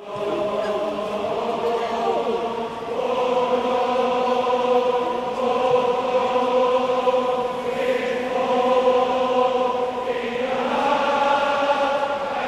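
Football supporters singing a chant together in long held notes, the tune stepping to a new note about three seconds in and again near the end.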